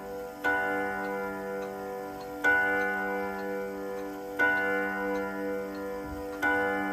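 Steel chime rod of a 1933 Junghans/HAC chiming wall clock struck by its hammer once every two seconds, four times, each stroke ringing on until the next: the slow, even strokes of the clock striking the hour.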